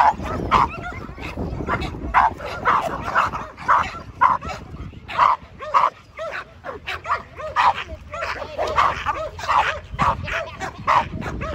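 Pit bulls barking over and over in short, sharp barks, several a second.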